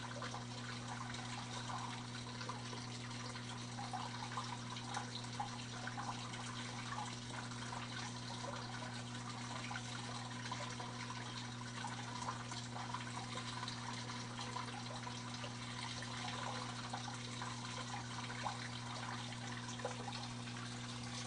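Aquarium filter running: water trickling and splashing over a steady low motor hum.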